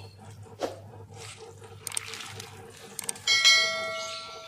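A subscribe-button animation sound effect: two pairs of quick clicks, then a bell ding about three and a half seconds in that rings out and fades over a second, the loudest sound. Under it, faint sloshing as cassava leaves are turned with metal tongs in boiling water.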